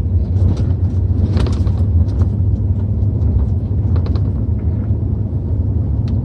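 Pickup truck driving, with a steady low rumble of engine and road noise heard from inside the cab and scattered light rattles and clicks.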